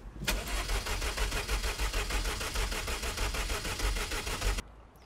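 MG TF's four-cylinder engine being cranked by its starter motor, turning over in a fast, even beat without firing; the cranking stops abruptly near the end. It fails to start because of an ignition fault that the owner suspects is a faulty coil pack.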